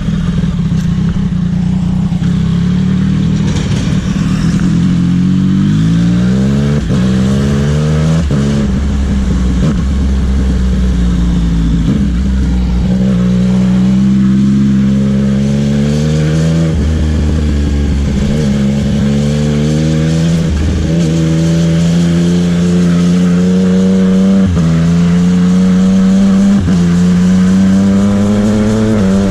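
Motorcycle engine under acceleration, its pitch climbing and then dropping abruptly at each gear change, several times in a row, over wind and road noise.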